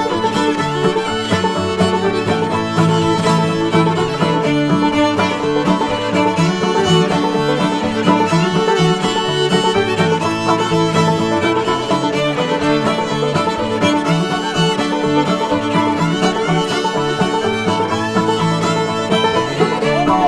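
Instrumental background music in a bluegrass style, led by fiddle with banjo, playing steadily without a break.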